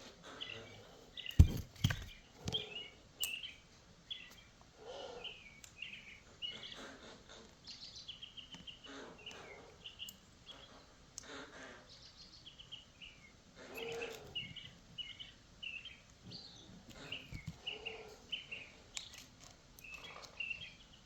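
Birds chirping in quick short notes again and again. A few sharp knocks about one and a half to two seconds in, the first the loudest.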